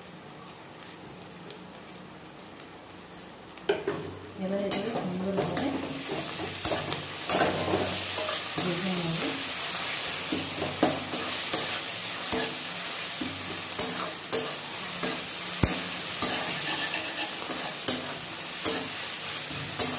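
Onions with ginger and garlic paste sizzling in hot oil in a metal kadai, a steel spatula stirring and knocking against the pan about once a second. The sizzling and stirring start about four seconds in.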